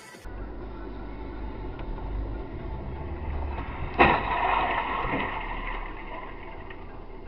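Low, steady rumble of the recording car driving. About four seconds in, a sharp crash as two cars collide in the intersection ahead, with a noisy tail about a second long.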